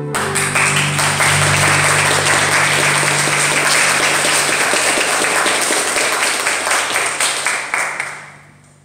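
Congregation applauding: many hands clapping together. It starts at once, holds steady for about seven seconds, then dies away near the end.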